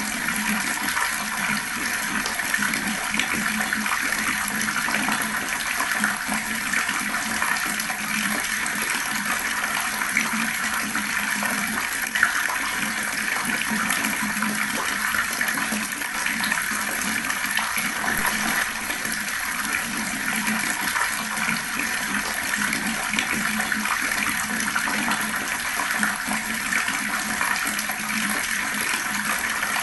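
Water tap running slowly in a steady, even stream of splashing water.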